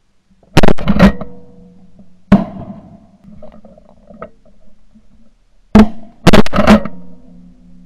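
Shotgun fired repeatedly, heard from a camera mounted on the gun: loud blasts in quick strings. There are two or three shots about a second in, another at about two seconds, and a fast run of three or four near six seconds in. A steady low hum lies beneath them.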